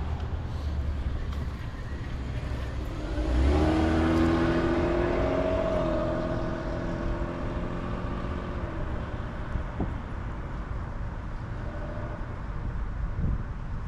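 Street traffic, with a vehicle's engine accelerating about three seconds in: its note rises in pitch, holds, then fades away over several seconds.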